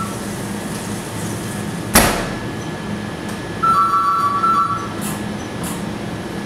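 Stainless combi oven door shut with a sharp metallic clank about two seconds in. Then the oven's electronic beeper sounds a repeated two-tone beep for about a second. A steady low hum runs underneath.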